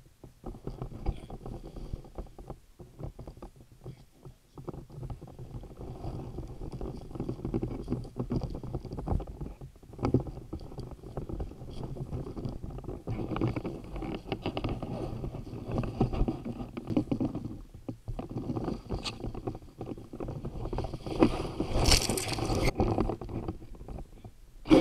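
Muffled, continuous rubbing and knocking of a bow-mounted camera being carried through woodland, full of small irregular bumps. A louder, brighter rustle comes a few seconds before the end.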